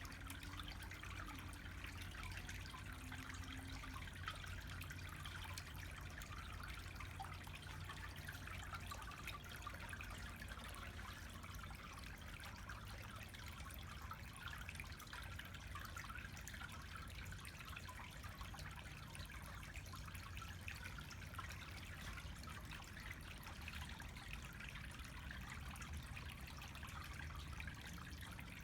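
Water trickling steadily over a green granite pillar fountain, a continuous light splashing with a low steady rumble underneath.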